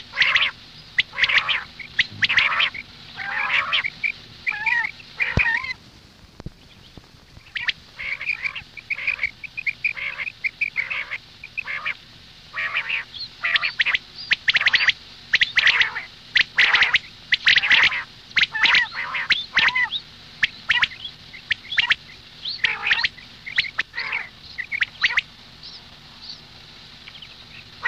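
Birds calling over and over, short squawking calls in quick runs with brief pauses between them.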